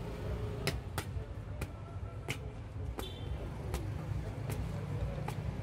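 Thin roti dough being slapped and stretched by hand on an oiled stainless-steel counter, a sharp slap roughly every half second to second, over a steady low rumble of street traffic.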